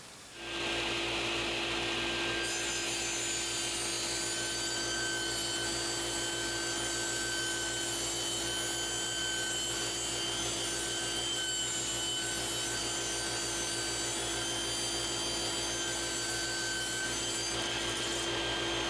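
Table saw ripping a long board with a 24-tooth rip blade: a steady running sound with a constant whine. It swells up within the first second and then holds level.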